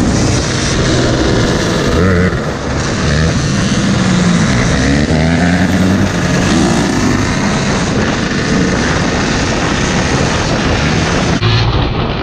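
Dirt bike engine revving up and down while riding at speed in a pack of dirt bikes and ATVs, with wind rushing over the camera's microphone. The sound changes abruptly near the end.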